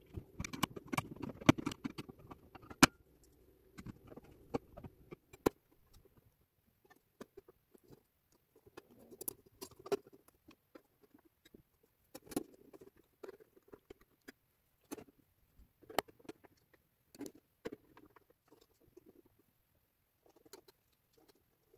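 Small clicks, taps and light scraping from parts of an antique mantel clock being handled on a workbench. The sounds are busiest in the first three seconds, then come in short, scattered clusters.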